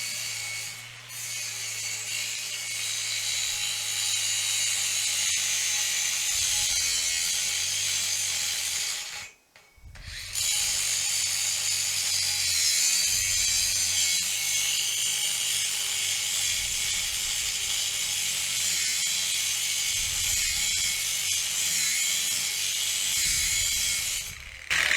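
Battery-powered cutting tool running steadily as it cuts a notch into a metal pipe. It stops briefly about nine seconds in, then runs again. The tool is short of power and struggling to cut.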